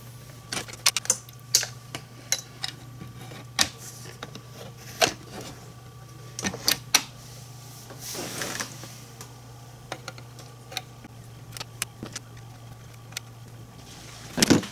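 Small metal clicks and taps at uneven intervals as an Allen wrench and needle-nose pliers work tiny hex screws and nuts on an aluminium display case, over a steady low hum. A brief rustle comes about eight seconds in.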